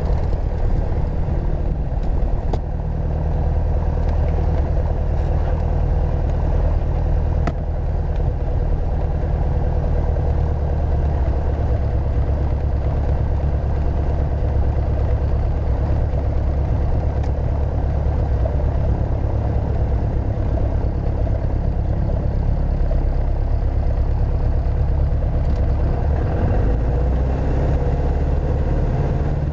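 Piper Archer II's four-cylinder Lycoming engine running steadily at low taxi power, heard inside the cabin, with a few faint clicks. The engine note shifts slightly near the end as the aircraft lines up on the runway.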